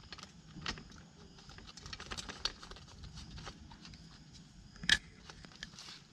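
Scattered light clicks and taps of small metal parts being handled: Allen screws with washers being set into a plastic motorcycle chain cover. One sharper click about five seconds in.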